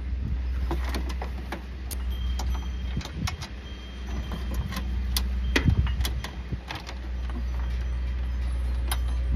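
Irregular light clicks and taps from a ratchet and small hardware being handled while a chassis ground nut is taken off, over a steady low hum.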